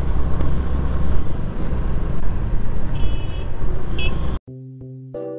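Riding noise of a Hero Maestro scooter, picked up by a helmet-mounted camera: a steady rumble of engine, wind and traffic, with two short high beeps from a horn about three and four seconds in. A little over four seconds in it cuts off abruptly and light background music with separate notes begins.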